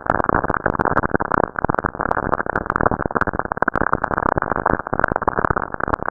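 Radio emissions from lightning on Saturn, recorded by the Cassini spacecraft and converted to audio: a dense, muffled crackling static full of rapid sharp clicks.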